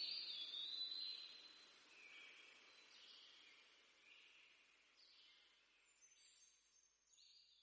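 Faint tail of background music: high chirping, bird-like tones that fade out, with the music's lower notes ending at the start.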